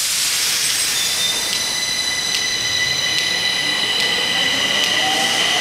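Stockholm metro train pulling out of the station, with several steady high whining tones over its running noise, starting suddenly and holding level.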